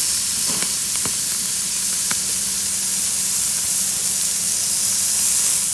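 Angus beef steaks sizzling on a hot barbecue grill: a loud, steady hiss of fat and juices cooking, with a few faint pops about half a second, one second and two seconds in.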